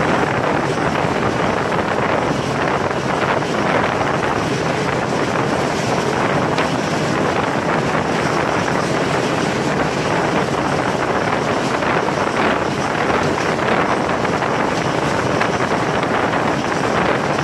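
Steady wind rush buffeting the microphone over the running noise of a passenger train at speed, heard from an open door of a moving coach of the Karakoram Express.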